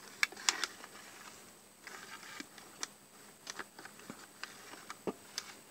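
Scattered light clicks and taps of fingers handling a model locomotive's plastic chassis and wiring; no motor is running yet.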